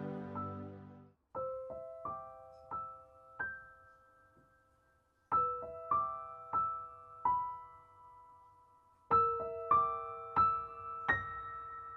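Background music: a soft piano melody of single notes picked out in short phrases with brief pauses between them. A fuller piece fades out and stops about a second in, just before the piano begins.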